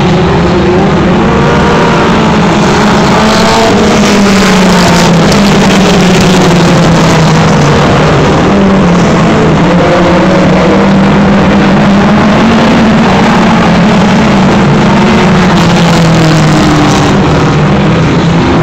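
Several dirt-track race cars' engines running loud at once, their pitches overlapping and rising and falling as the cars go around the oval.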